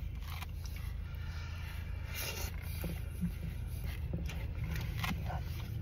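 A person chewing a hot mouthful of biscuit and gravy and huffing out air to cool it, with a few light scrapes and clicks, over a low steady hum in a car.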